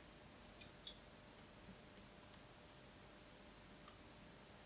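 Near silence broken by a few faint small clicks: two close together about a second in, then lighter ticks, as a resistor's leads are handled and fitted to test cables at an LCR meter's front terminals.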